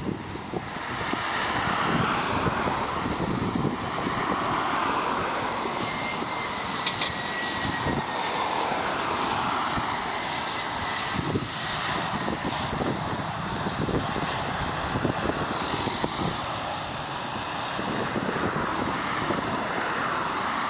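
Airbus A320 jet airliner landing, its engines giving a steady roar. A thin whine in the roar falls slowly in pitch as the aircraft passes.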